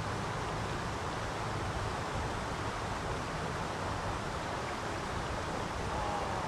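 Water spilling over and through a lake dam into the channel below: a steady, unbroken rushing hiss.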